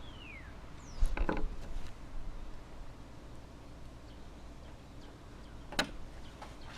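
A few sharp clicks and knocks of small hand work, a cluster about a second in and single ones near the end, likely from adjusting a lawnmower spark plug's electrode gap by hand. A bird's falling whistle sounds at the very start.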